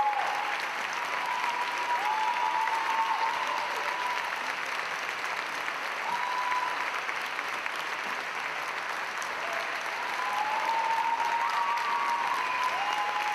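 Theatre audience applauding steadily at a ballet curtain call, with a few brief calls from the crowd rising above the clapping now and then.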